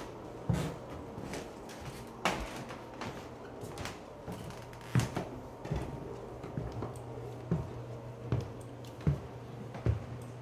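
Footsteps of a person walking down a carpeted staircase, a dull thump every second or so, over a steady low hum.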